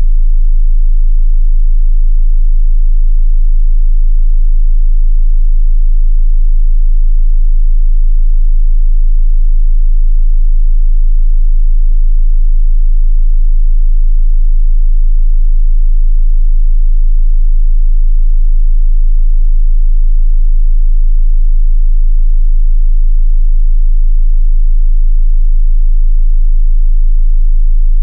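A steady, loud 27 Hz sine-wave test tone: a single very deep bass hum, held unchanged. Two faint clicks sit over it, about twelve seconds in and again near twenty seconds.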